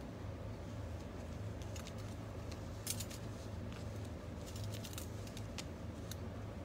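Light metallic clicks and ticks from a thin stainless-steel wire grate being handled and bent, coming in a few quick clusters, over a steady low hum.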